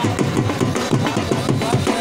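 Music with fast, steady drumming, about five drum strokes a second.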